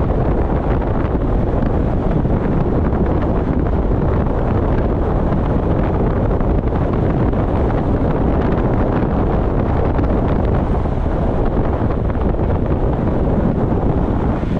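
Wind rushing over a GoPro's microphone at speed on a road-bike descent, a steady loud rush.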